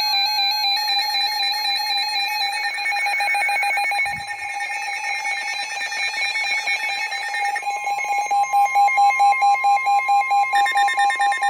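Several NOAA weather radios sounding their alert alarms at once, overlapping pulsed electronic beeps. A steady tone joins the beeping about seven and a half seconds in.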